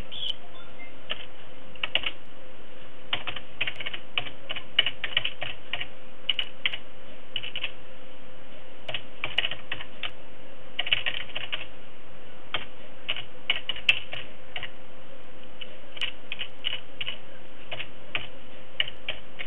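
Computer keyboard typing in irregular bursts of keystrokes, with a faint steady hum underneath.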